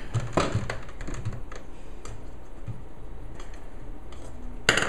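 Small irregular clicks and ticks of a screwdriver backing screws out of a hard drive enclosure's back panel, with a louder clack near the end.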